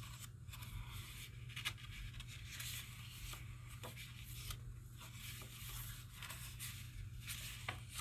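Pages of a handmade journal of cardstock and mixed-media paper being turned by hand: faint paper rustling with a few soft flicks, over a low steady hum.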